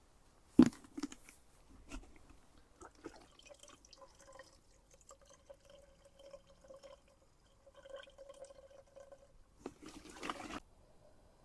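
Liquid being poured or trickling into a container, with a sharp knock near the start, scattered small clicks and a short burst of splashing near the end.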